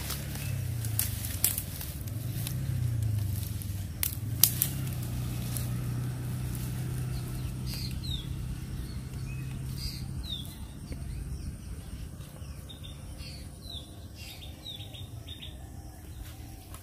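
Small birds chirping in short, high, falling notes from about eight seconds in, over a low steady hum. A few sharp knocks come in the first five seconds.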